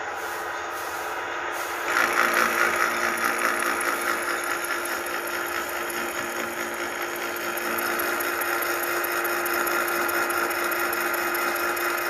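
Workshop machinery running steadily, a hum with a broad hiss over it that grows louder about two seconds in.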